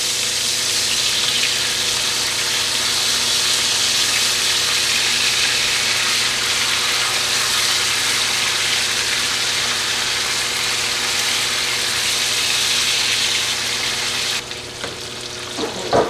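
Food sizzling steadily in a frying pan over the steady hum of a running range-hood fan; the sizzle cuts off suddenly near the end.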